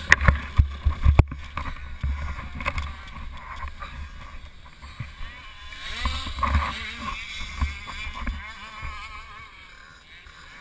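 65cc two-stroke motocross bike engine running and revving up over the track, recorded from a mount on the bike, with wind buffeting the microphone. Sharp knocks in the first second or so; the engine swells about six seconds in and eases off near the end.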